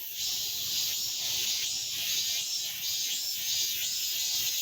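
Chorus of male cicadas singing: a steady high-pitched buzz with a faint pulsing throughout.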